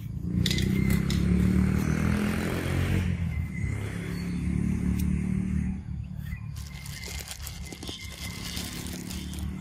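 A motor vehicle's engine running past, a low steady hum that swells in the first seconds and fades after about six seconds.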